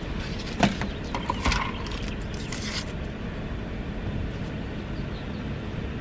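Steady low hum of an idling car, heard from inside the cabin. A sharp knock comes about half a second in, with rustling and scraping over the next two seconds as a drink cup is handled.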